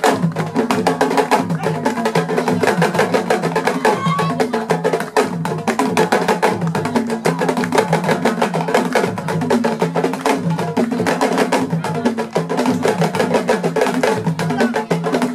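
Ensemble of Senegalese sabar drums played together in a fast, dense rhythm, sharp strokes following one another rapidly without a break.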